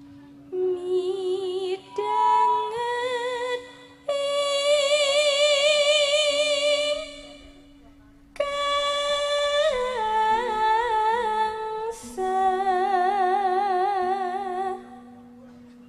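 A sinden, a female Javanese gamelan singer, singing solo through a microphone: several long phrases of held notes with wide vibrato and melismatic turns, separated by short breaks. A faint steady low note sounds beneath the voice.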